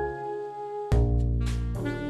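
Instrumental background music with held, sustained notes; a heavy beat with deep bass comes in about a second in.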